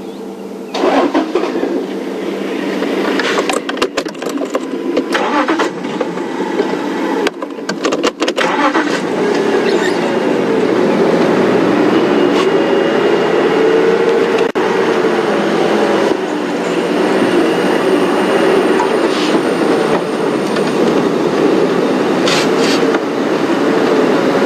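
Safari game-drive vehicle's engine running under way off-road, its pitch rising and falling as it drives, getting louder about a second in. Occasional short knocks and rattles are heard along the way.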